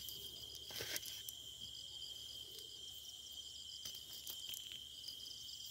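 Faint, steady chorus of crickets chirring at night, with a few brief clicks and rustles from close by.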